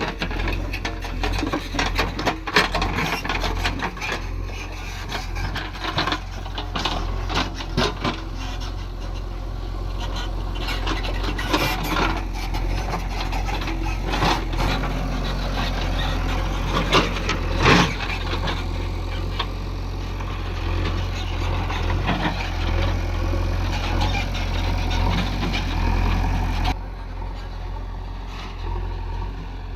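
JCB backhoe loader's diesel engine running steadily, with frequent scrapes and knocks over it. The higher sounds fall away near the end while the engine keeps running.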